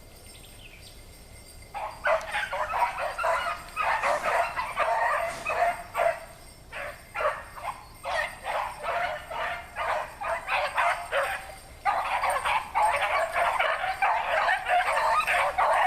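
A pack of rabbit hounds opens on a rabbit's track about two seconds in, several dogs baying and yelping over each other in a running chorus. It eases off briefly twice, then comes back in full.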